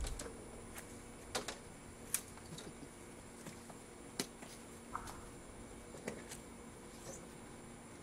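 Sparse small clicks and taps, about seven spread irregularly, the sharpest a little after two seconds in, over a faint steady hum.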